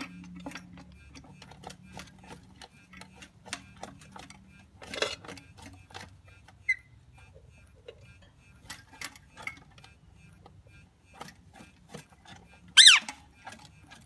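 Parrots eating, their beaks making a run of small irregular clicks and nibbling sounds, with a soft chirp midway and one short, loud squawk near the end.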